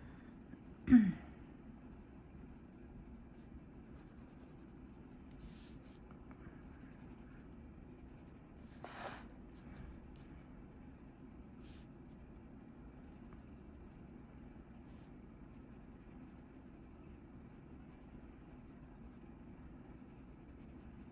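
Faber-Castell Polychromos coloured pencil scratching softly on coloring-book paper. A short, loud vocal sound falling in pitch comes about a second in, and a softer breath-like burst about nine seconds in.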